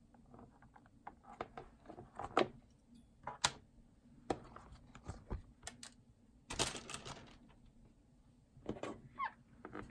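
Scattered light clicks and taps of small objects being handled on a work surface, with a brief rustle about two-thirds of the way in.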